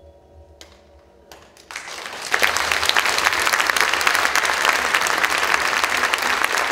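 A few scattered claps, then an audience breaks into sustained applause about two seconds in.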